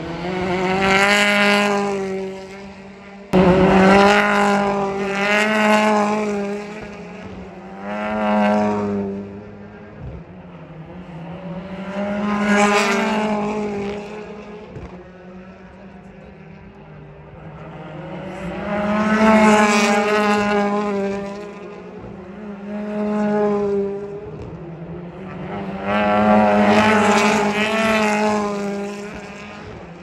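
Turbocharged BTCC touring cars passing one after another through a chicane. Each engine note swells and fades, its pitch falling and rising as the car brakes, changes gear and accelerates away. About three seconds in, the sound jumps suddenly in loudness.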